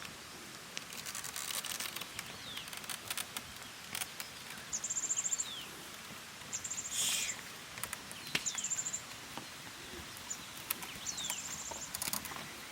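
A small bird repeating short, very high rapid trills every couple of seconds, with quick falling chirps between them. Scattered soft clicks and scuffs run underneath.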